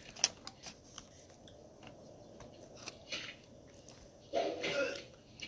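Close-up chewing and biting as a person eats oxtail, with scattered short clicks like a plastic fork tapping the food container, and a louder burst of sound about four seconds in.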